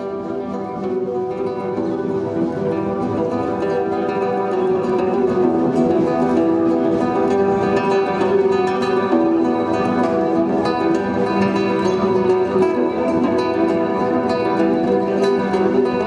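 Classical (nylon-string) guitar played fingerstyle: a dense stream of plucked notes ringing over held bass tones, swelling in loudness over the first few seconds and then holding steady.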